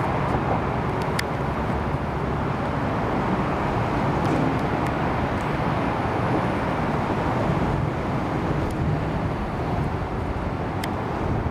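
Steady low rumble of distant city road traffic, with a few faint ticks scattered through it.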